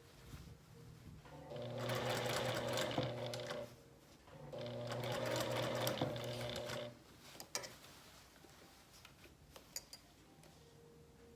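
Sewing machine running in two bursts of about two seconds each with a short stop between, edge-stitching a shirt cuff, followed by a few light clicks.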